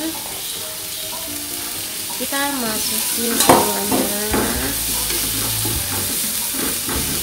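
Chopped vegetables sizzling in hot oil in a non-stick frying pan as they are tipped in from a steel bowl and stirred with a wooden spatula. A single sharp knock stands out about three and a half seconds in.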